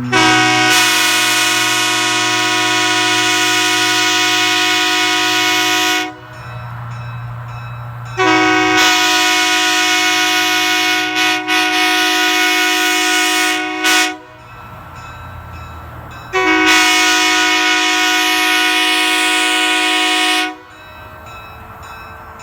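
Nathan Airchime K3LA locomotive horn, three bells (1, 2 and 4A) on a low-mount manifold, sounding its steady chord in three long blasts of about four to six seconds each. The middle blast breaks off twice briefly near its middle.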